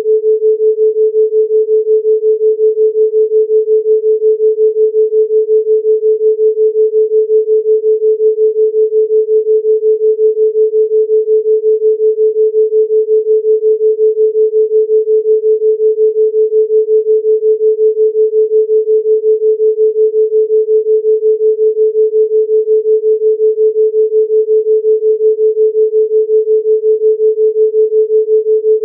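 A steady 432 Hz pure sine tone, its loudness pulsing evenly several times a second as a theta-range binaural beat.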